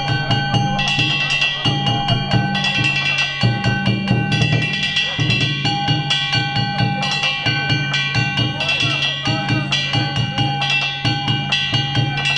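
Danjiri bayashi: festival drums and small hand gongs played together in a fast, continuous rhythm, the gongs ringing over the drum beats.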